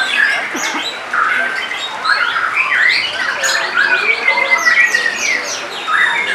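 White-rumped shama (murai batu) song: a rapid, varied stream of whistles, sweeping notes and harsh chips. A longer drawn whistle comes about four seconds in. Other birds' song overlaps throughout.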